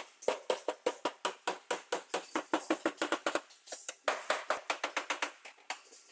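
Rapid sharp tapping, about six strikes a second. It breaks off briefly a little past the middle, then resumes and stops near the end.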